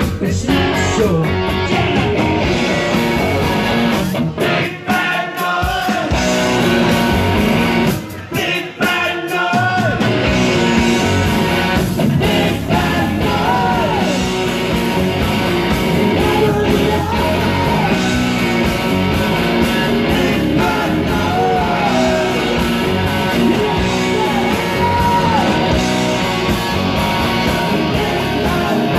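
Rock band playing live, with electric guitar, bass, drums and a lead vocal. The band cuts out briefly twice in the first ten seconds, then plays on at full volume with the singer over it.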